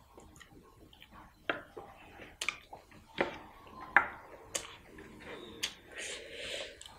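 Close-up mouth sounds of a person eating mutton curry and rice: chewing with sharp, wet clicks and lip smacks every second or so, and a short hissy smack near the end.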